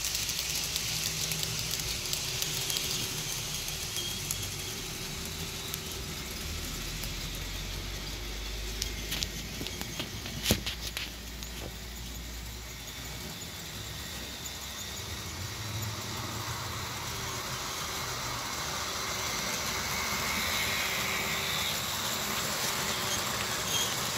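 Model train running on the track: a steady motor hum and hiss with the clatter of wheels on rail. It passes close at the start, fades, and grows louder again near the end as it comes back round. There is a sharp click about ten and a half seconds in.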